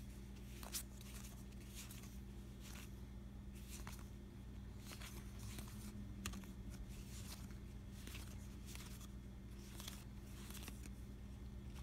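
A stack of board-game cards being flipped and sorted through in the hands: faint, repeated scraping and flicking of card against card, over a low steady hum.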